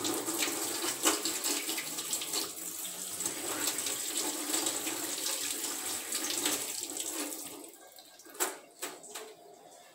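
Tap water running steadily over hands and a small plastic canister-filter cap as it is rubbed clean in a stainless steel sink. The water stops about three-quarters of the way through, followed by two short knocks.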